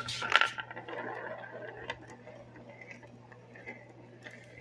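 Marbles clattering and rolling along a marble run: a burst of clicks in the first half second, then rolling with scattered light ticks.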